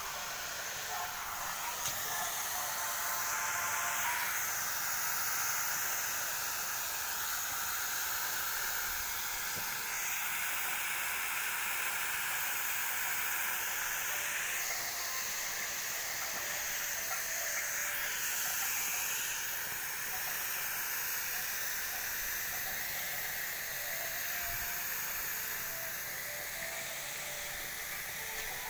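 Tall water jets of an illuminated show fountain hissing and spraying steadily, the rush of water shifting in tone every few seconds as the jets change.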